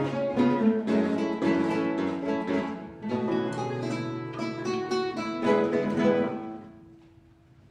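Classical guitar ensemble playing the closing bars, with repeated plucked chords. It ends on a final chord that rings out and fades away about seven seconds in.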